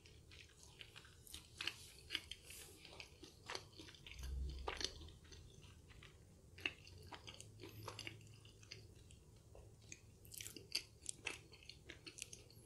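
Close chewing of a flaky, chocolate-filled pastry tart: soft, irregular mouth clicks and small crunches, faint throughout.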